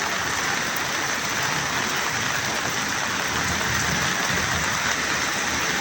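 Steady hiss of water, heavy and even, with no breaks.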